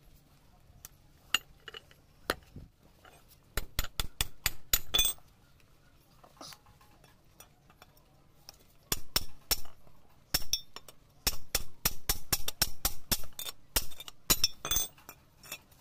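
Hammer blows on a steel pipe used as a drift, driving a ball bearing down onto a helical gear shaft set on a steel plate: bursts of sharp metallic clinks, a short quick run about four seconds in and a longer run of strikes through the second half.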